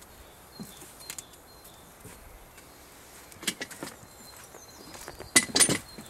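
Short handling noises: a few scattered clicks and rustles, the loudest cluster about five and a half seconds in, over a faint outdoor background.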